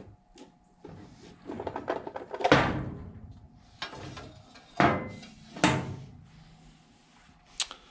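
Plastic housing of a self-retracting power cord reel being pried open and its parts handled: a run of knocks, clacks and scraping, the loudest clack about two and a half seconds in.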